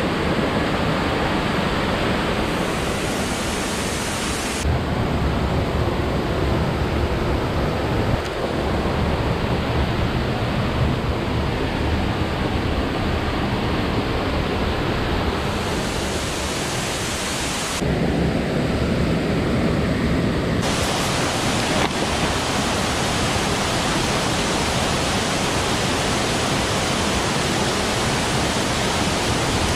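Steady rush of a waterfall's falling water, with no breaks in it. Its tone shifts abruptly several times, thinning in the highs about 5 and 18 seconds in and filling out again about 15 and 21 seconds in.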